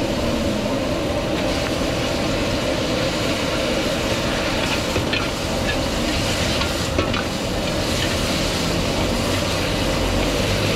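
Vegetables sizzling in a wok over a gas wok burner that runs steadily underneath, with a metal ladle scraping and knocking against the wok as they are stir-fried; a few sharp knocks about halfway through.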